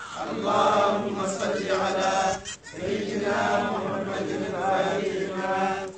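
A group of men chanting a Tijani Sufi dhikr in unison. The chant comes in long held phrases with a brief breath pause about two and a half seconds in and another at the end.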